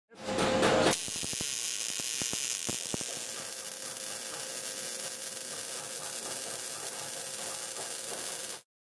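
MIG/MAG welding arc, a steady crackling hiss. It starts with a louder surge of under a second and a few sharp pops in the first couple of seconds, then cuts off abruptly near the end.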